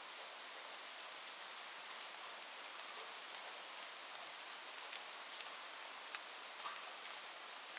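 Steady rain, an even hiss of falling water with scattered sharp ticks of single drops striking.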